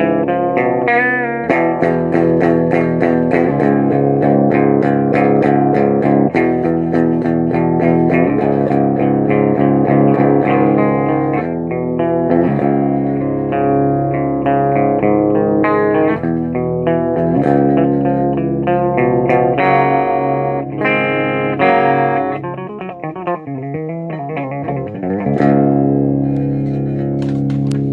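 Electric guitar played through a Peavey Bandit 112 solid-state 1x12 combo amp: strummed chords ringing out one after another. A little before the end the pitch wavers and warbles, then a final chord is left to ring.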